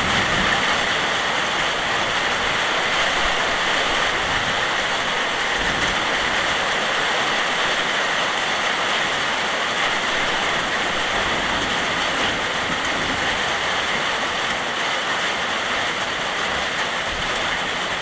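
Steady heavy rain: an even, unbroken hiss with no distinct thunder claps.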